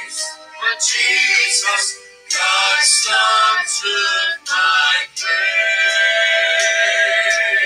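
Gospel song sung as a duet by a man and a woman, amplified through the room's loudspeakers, in sung phrases with short breaks between them and a long held note near the end.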